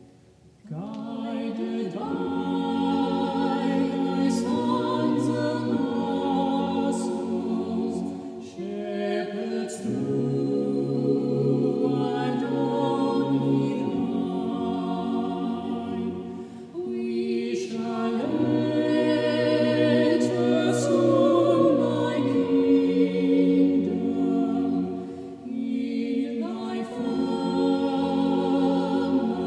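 Mixed chamber choir singing a hymn. The singing comes in about a second in after a short pause and goes on in long phrases, with three brief breaks between lines.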